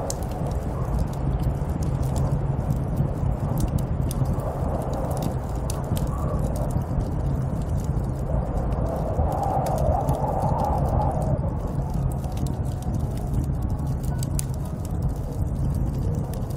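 Snowstorm wind blowing steadily with a deep low rumble, swelling in a stronger gust about nine seconds in. Scattered light ticks and crackles run over it throughout.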